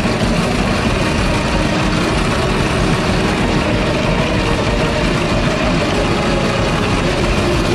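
Small go-kart engines running steadily as the karts drive along, a dense, even rumble.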